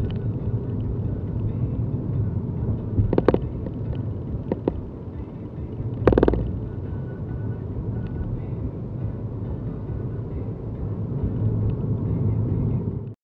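Car driving at town speed, heard from inside the cabin: a steady low road and engine rumble, with two brief clunks about three and six seconds in.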